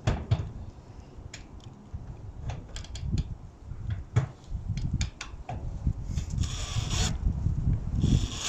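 Scattered clicks, knocks and rubbing from work on standing-seam metal roof panels being fitted, with a louder hissing noise coming in near the end.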